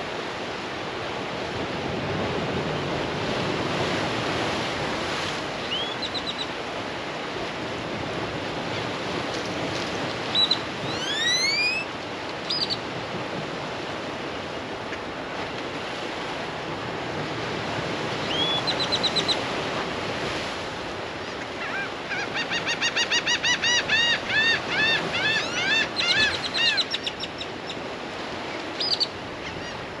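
Surf washing steadily along a rocky shore, with gulls calling over it: a few single rising calls, then a fast run of about a dozen calls about two-thirds of the way through.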